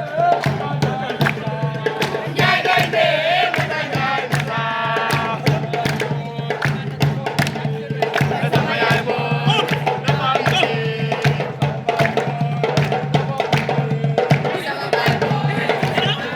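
A group of voices singing and chanting over a fast, steady percussion beat of drum strikes or hand claps.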